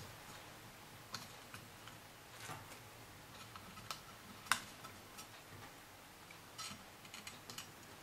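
Faint, sparse clicks and taps of the plastic Bose SoundDock Portable case being handled while its rubber feet are pressed back onto the base. The loudest tap comes about halfway through, and a quick run of small clicks comes near the end.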